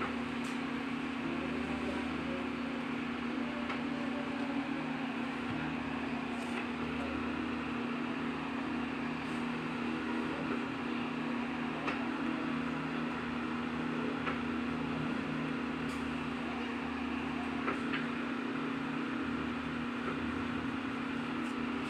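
Steady mechanical hum with a constant low drone, unchanging throughout, and a few faint ticks over it.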